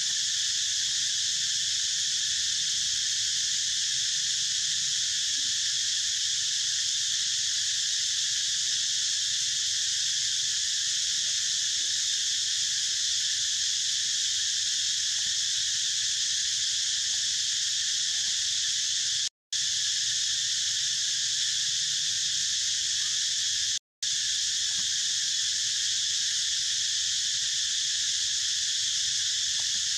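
Steady, dense insect chorus of chirring, the high, unbroken drone of forest cicadas or crickets. It cuts out twice for a moment in the second half, then resumes unchanged.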